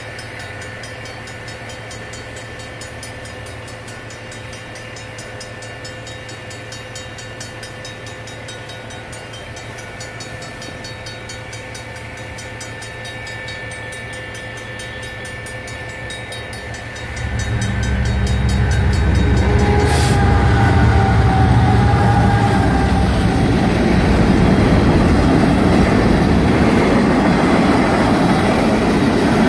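Railroad crossing bells ringing steadily, from an electronic bell and a mechanical bell. About 17 seconds in, a diesel-hauled freight train arrives with a loud low rumble of locomotives, and there is a sharp clank a few seconds later. Freight cars then roll through the crossing while the bells keep ringing.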